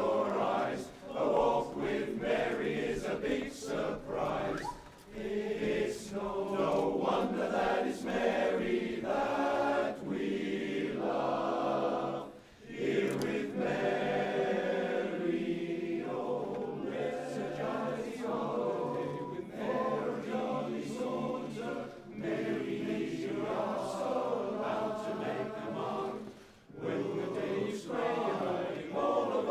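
A large chorus of about forty singers singing a cappella in several-part harmony, with brief breath breaks between phrases.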